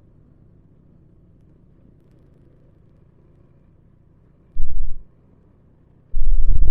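Faint steady rumble of a motorcycle ride, broken by two loud, deep buffeting blasts on the action camera's microphone: a short one about four and a half seconds in and a longer one near the end.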